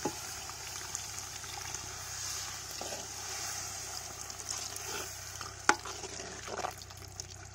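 Spiced onion-tomato masala sizzling in a large iron kadai while a perforated metal ladle stirs it, scraping and knocking against the pan; chilli powder has just gone in. One sharp knock of the ladle stands out a little before six seconds in.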